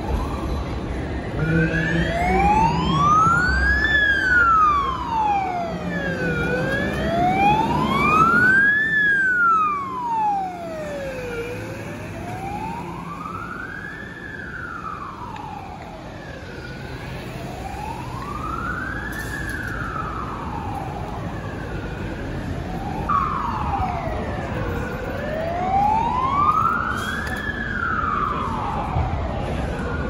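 Fire engine siren on a slow wail, its pitch rising and falling about every five seconds. Low rumble of passing traffic under it for the first ten seconds or so.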